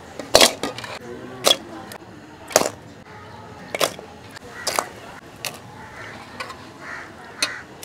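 Washed pieces of blue swimmer crab dropped into an aluminium bowl, a sharp clack of shell on metal and shell about once a second, seven or so in all.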